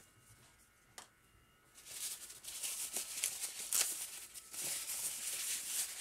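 Packaging wrap rustling and crinkling as it is pulled off a charging cradle by hand. It starts about two seconds in, after a near-silent start with one light click.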